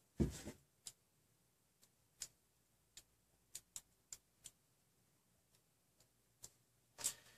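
Hands handling small parts and tools on a workbench: a knock about a quarter second in, then scattered light clicks and taps at irregular intervals.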